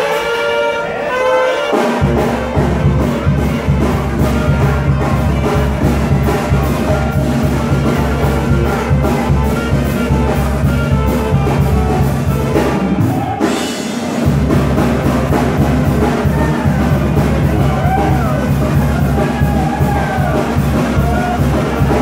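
Loud dance music played over a DJ sound system: a brass fanfare for about two seconds, then a heavy bass beat comes in, drops out briefly about thirteen seconds in and returns.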